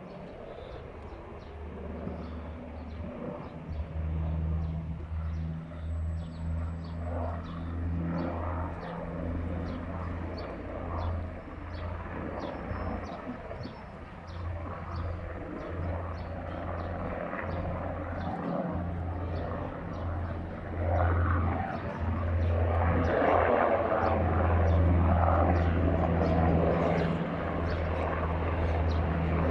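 NH90 twin-turbine military helicopter running, a steady, pulsing low drone of rotors and engines. It grows clearly louder over the last third.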